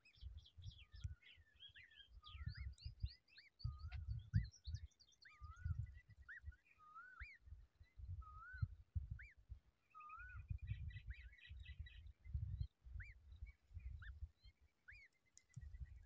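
Birds chirping: short notes that sweep up and down, some in quick runs and some spaced about a second apart, with intermittent low rumbles underneath.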